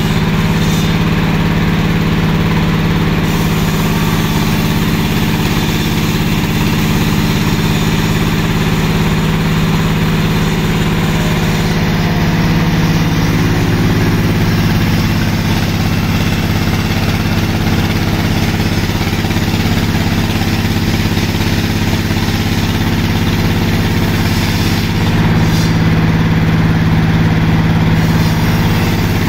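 Sawmill machinery running steadily while ripping a log: a constant engine-driven drone with a strong hum and a hiss of cutting noise above it.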